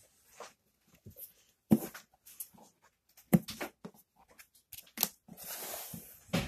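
Trading cards and a cardboard box being handled: a few light knocks as cards are set down and the box is touched, then about a second of rustling near the end as a hand reaches into the box.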